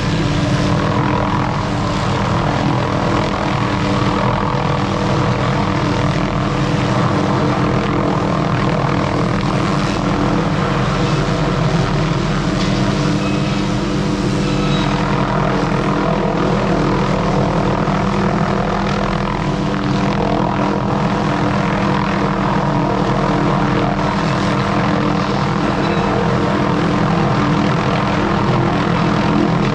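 A small engine running steadily at constant speed, with no change in pitch or pauses.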